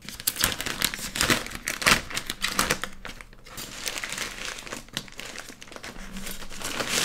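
A drone's retail box being opened by hand and its contents lifted out: irregular rustling and scraping of the packaging, with small sharp knocks and clicks throughout.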